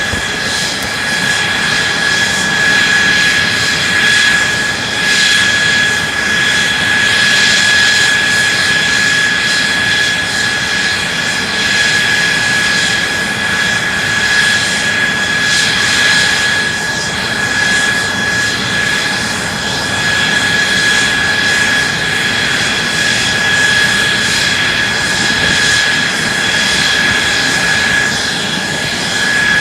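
Mitsubishi F-2's General Electric F110 turbofan running steadily on a ground run, a constant high whine over a loud, even rush of jet noise.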